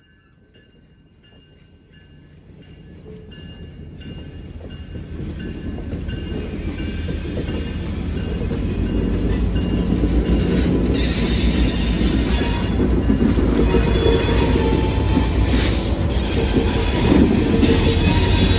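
A train rolling by, its railcars clattering over the track. The sound grows steadily louder as two EMD GP40-type diesel locomotives trailing the train, a GP40WH-2 and a GP40-2LW, draw near and pass close, with their engines rumbling and wheels squealing on the curve.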